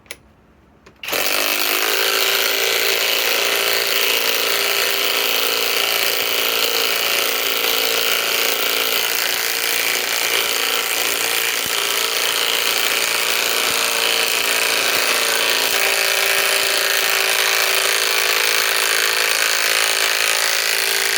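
Kobalt 24-volt right-angle cordless impact wrench hammering steadily as it drives a 5-inch screw into a pre-existing hole in timber. It starts about a second in, runs evenly for about twenty seconds and stops abruptly.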